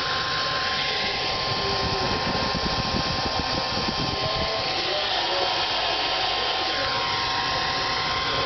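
Hand-held hair dryer running steadily, a constant rush of air with a thin motor whine, blown into a refrigerator's frozen-up ice maker to thaw it.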